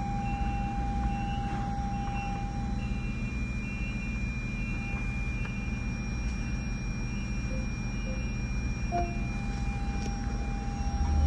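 2017 Lexus RX350's 3.5L V6 idling, heard from inside the cabin as a steady low rumble. A faint electronic beep repeats about twice a second through most of it.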